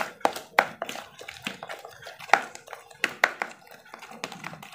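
A metal spoon stirring a thick, wet egg-and-milk-powder bait mix in a plastic bowl, with irregular clicks and taps of the spoon against the bowl a few times a second.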